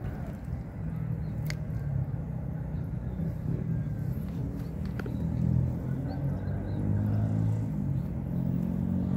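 Low, steady engine rumble of a motor vehicle running nearby, growing a little louder over the first few seconds. Two faint clicks come about a second and a half in and about five seconds in.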